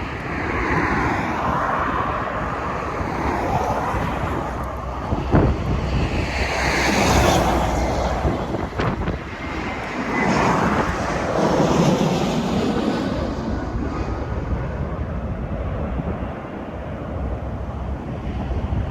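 Jet airliner engines passing, a loud rushing sound that swells and sweeps in pitch through the middle, with wind buffeting the microphone as a low rumble.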